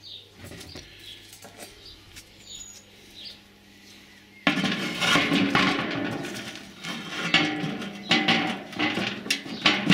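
A few faint clicks from kitchen scissors being handled, then, from about four and a half seconds in, a sudden loud and continuous rustling and crackling as a sack of barbecue briquettes is opened and handled.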